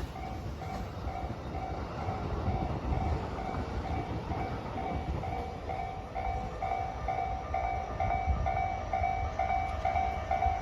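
Level crossing's electronic warning bell ringing in a steady two-tone pattern, about two strokes a second, over the low rumble of Koki container wagons of a freight train rolling past.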